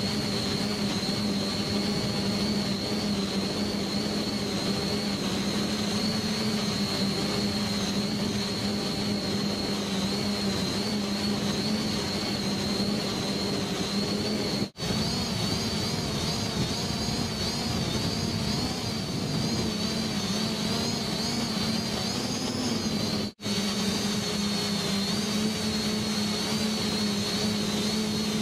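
Small multirotor drone's motors and propellers running steadily, a hum with a high whine that wavers slightly in pitch. The sound drops out for an instant twice, about 15 and 23 seconds in.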